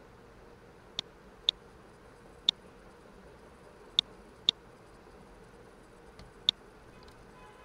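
Computer mouse button clicking: six short, sharp single clicks at uneven intervals, over a faint steady hum.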